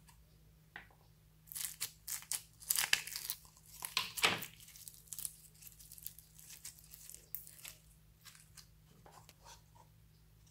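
Clear slime full of foam beads (floam) being stretched and squeezed by hand, giving a quick run of sticky crackling and popping, loudest in the first half and thinning to soft scattered crackles near the end.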